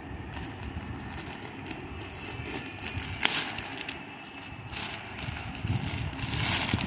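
Plastic packaging rustling and crinkling as it is handled, with a sharper crackle about three seconds in and again near the end.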